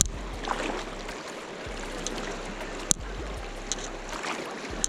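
Fast-flowing river water rushing steadily past, with a couple of sharp clicks, one about three seconds in and one near the end.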